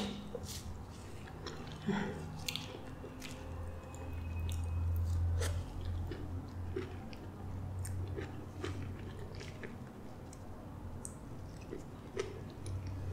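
A person chewing soft custard apple pulp close to the microphone, with scattered small wet mouth clicks. A low hum comes in about four seconds in and lasts a second or so.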